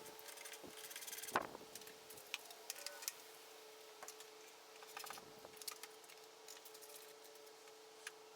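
Scattered light clicks and clatter of tools or small parts being handled, with one sharper knock about a second and a half in, over a steady faint hum.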